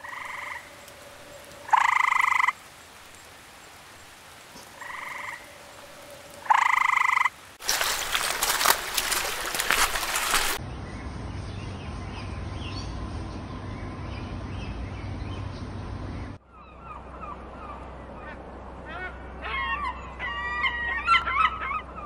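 A frog croaking four times in the first seven seconds, in two pairs, each pair ending in a louder call. Then a loud rushing hiss for about three seconds, a low steady rumble, and in the last five seconds a flock of birds calling.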